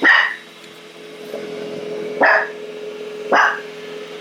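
A dog barks three times, sharp single barks about a second or two apart, at the moving robot vacuum it is afraid of. A steady hum from the running iRobot Roomba i7+ sits underneath.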